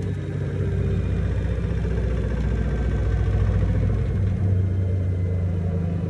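Hisense 7 kg front-loading washing machine running in the last minute of its wash cycle: a steady, low mechanical hum and rumble from the drum and motor.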